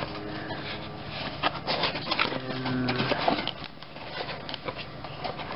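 A small cardboard box being opened by hand: its flaps rubbing and scraping, with scattered light clicks and rustles as the plastic contents are handled.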